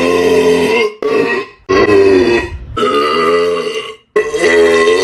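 Burp sound effects: a run of about five loud, drawn-out belches, one after another with short gaps between them.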